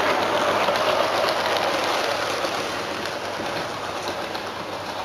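Model train running slowly along the layout's track: a steady, noisy running sound of wheels on rail and motor that gradually grows quieter.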